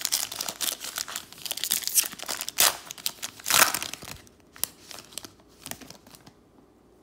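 Foil wrapper of a Panini Mosaic basketball cello pack being torn open and crinkled. The crinkling stops about four seconds in, leaving a few soft rustles and ticks as the cards come out.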